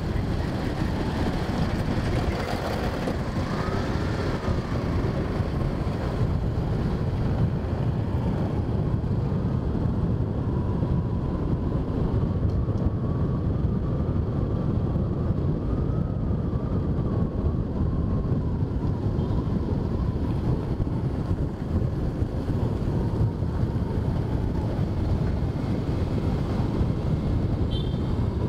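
Steady wind rushing over the microphone over the low, even rumble of a motorbike being ridden along the road.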